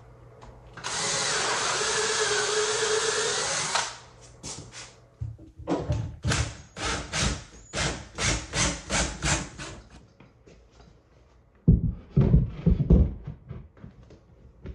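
A cordless drill runs steadily for about three seconds, its pitch wavering under load. Then comes a run of short rhythmic strokes, about three a second. Near the end there are several heavy thumps as the wooden mantel shelf is pushed into place against the wall.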